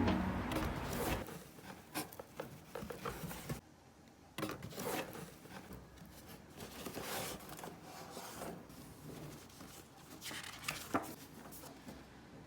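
Background music fading out, then faint rustling with small clicks and taps of objects being handled at close range.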